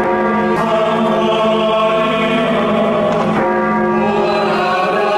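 Music of long held chords with a choir-like sound, the notes shifting to a new chord about three and a half seconds in.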